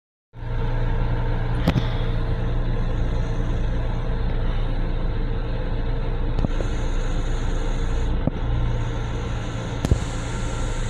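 Steady rumble and hum of an M7 electric railcar heard from inside its small restroom, with four short, sharp knocks or rattles through it.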